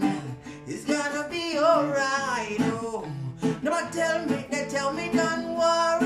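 Acoustic guitar being strummed in a steady rhythm while a man sings along, his voice gliding between held notes.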